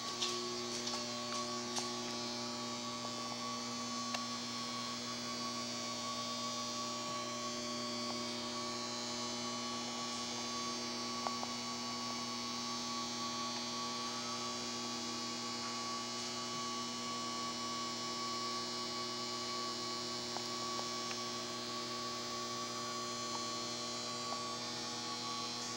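Steady electrical hum made of several fixed tones, a low one and a thin higher whine, over a high hiss, with a few faint clicks in the first couple of seconds.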